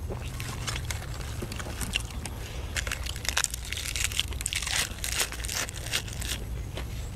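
Close-up chewing and crunching of food, with many quick, irregular crunches over a steady low rumble.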